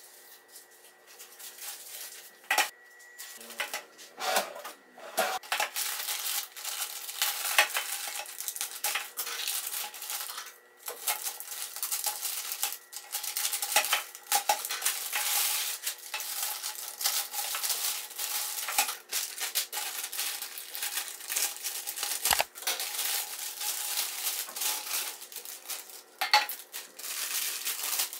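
Plastic courier mailer bag and packaging crinkling and rustling as a parcel is cut open and unpacked, with many small clicks and a single low thump about three-quarters of the way through.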